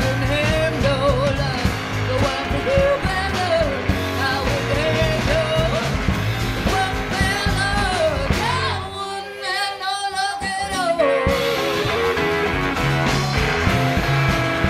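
Live band playing: a woman singing over acoustic and electric guitars and drums. The low end drops out for about two seconds around nine seconds in, leaving the voice and guitar, then the full band comes back in.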